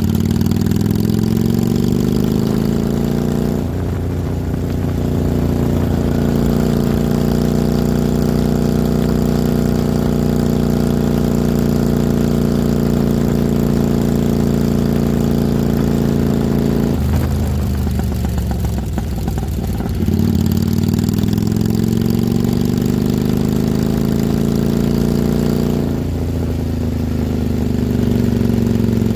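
1995 Kawasaki Vulcan 750's liquid-cooled V-twin engine running under way. The revs climb, drop at a gear change a few seconds in, and hold steady. A little past halfway the revs fall, then climb again, with another gear change near the end.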